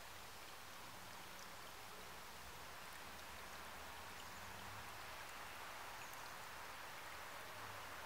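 Shallow stream trickling and babbling over stones: a steady, faint rush of running water.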